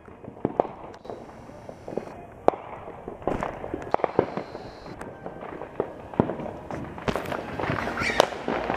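Fireworks and firecrackers going off all around, an irregular string of sharp pops and bangs that comes thicker and louder near the end.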